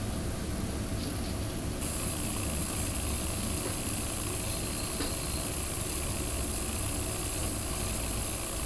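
Inside the cabin of a KiHa 40 diesel railcar: the diesel engine running steadily under the train's running noise as it slows to a crawl beside a station platform.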